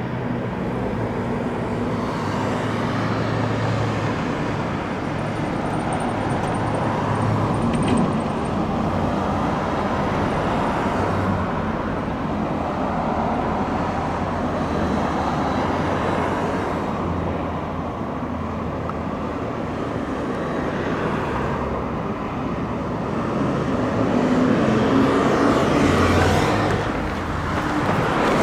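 Steady engine hum and road noise of a car driving at speed, with the engine note shifting a few times and growing a little louder near the end.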